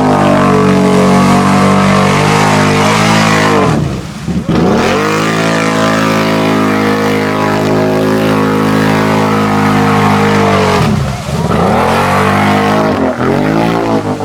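Mud-bogging off-road vehicle's engine run at high revs through the bounty hole, held steady, with the throttle briefly dropping and climbing back about four seconds in and again near eleven seconds.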